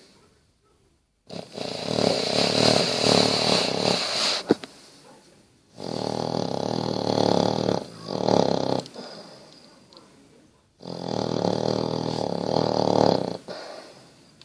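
Basset hound snoring in deep sleep: three long, loud rasping snores, about three seconds each, with quiet pauses between them and a brief click just after the first.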